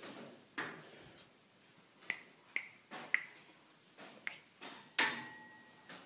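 A string of about eight sharp clicks and taps of hard objects, irregularly spaced. Several leave a short ringing tone, and the loudest, about five seconds in, rings on for about a second.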